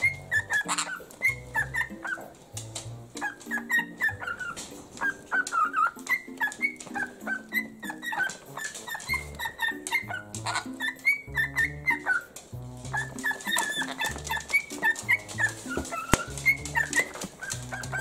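Pet parrots (a cockatiel and a sun conure) giving many short chirps and whistled calls, over background music with a steady bass line.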